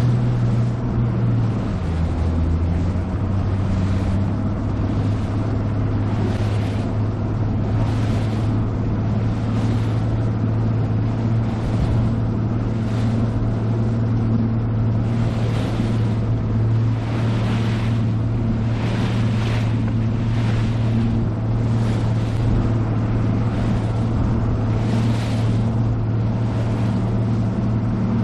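Bass boat's outboard motor running at a steady pitch, dipping briefly about two seconds in and then settling back. Over it come repeated washes of water as the hull meets the waves, about one a second.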